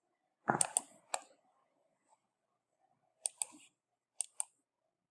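Computer mouse clicks: a louder cluster about half a second in, a single click just after, then two quick double clicks later on.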